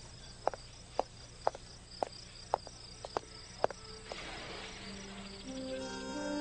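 Crickets chirping steadily, with hard-soled footsteps clicking on cobblestones about twice a second for the first few seconds. Soft music with held notes fades in near the end.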